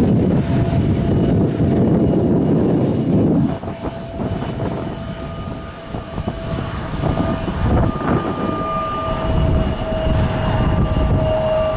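Jet airliner engines: a heavy rumble that is loudest for the first three and a half seconds and then eases, with a steady engine whine running through it.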